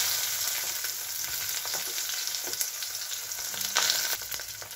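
Slices of brinjal (eggplant) sizzling and crackling as they fry in hot mustard oil in a steel kadai. About four seconds in there is a short surge of louder sizzling as more slices go into the oil.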